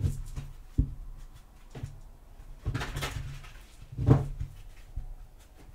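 A deck of tarot cards being shuffled by hand, with irregular soft knocks of the cards against the hands and table and short rustling shuffles, the strongest about three and four seconds in.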